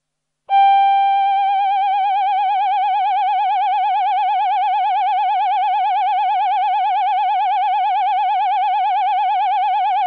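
Roland VP-330 Vocoder Plus synthesizer's 'Human Voice' male choir preset holding one long note. Its vibrato sets in gently after the first second and then stays even.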